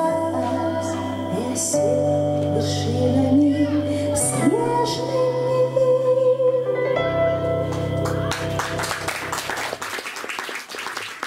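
A woman sings the closing phrases of a song over sustained instrumental accompaniment with a steady bass line. The music ends about eight and a half seconds in, and audience applause follows.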